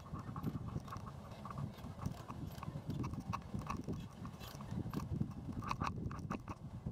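Steel chain clinking and rattling as it is handled and hauled by hand, a run of irregular metallic clinks and knocks.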